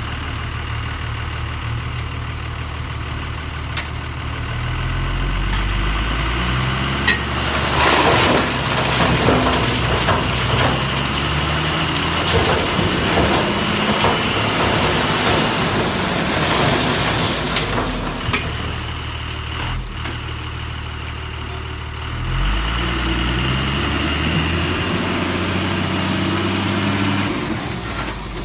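Heavy vehicle engine idling steadily, with a revving rise in pitch about five seconds in and again near 22 seconds. Between these, a louder stretch of clattering and scraping runs for about ten seconds.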